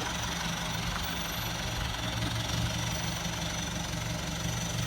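A vehicle engine running steadily at a low, even speed, with a continuous low hum.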